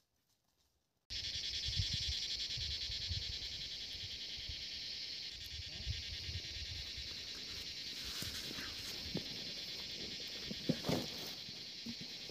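Steady, high-pitched chorus of insects starting abruptly about a second in, with low thumps and a few clicks over it.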